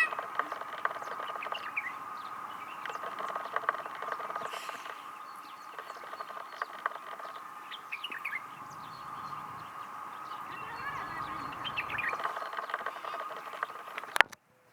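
Birds calling and chirping, with many short calls over a steady high drone. A sharp click about a second before the end is followed by a sudden cut to near silence.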